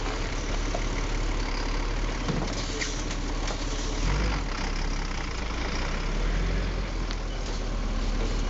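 Heavy truck engine running steadily at low speed as the truck edges through a tight turn, a constant low rumble with road and mechanical noise over it.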